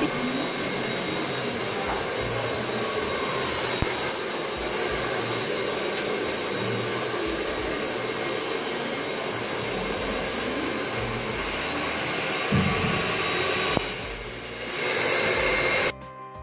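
Handheld hair dryer blowing steadily as it dries wet hair. It dips briefly near the end, then cuts off abruptly.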